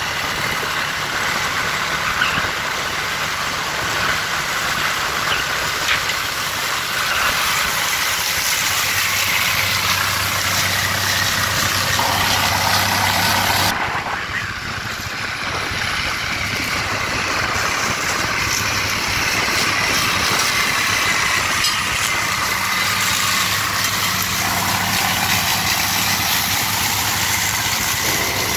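International Harvester 1256 tractor's diesel engine running steadily under load, pulling a Loftness stalk shredder through cornstalks. Wind buffets the phone microphone. The sound changes abruptly about halfway through.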